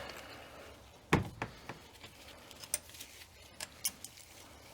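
Scattered light metallic clicks and taps of bolts and small parts being handled, the sharpest about a second in.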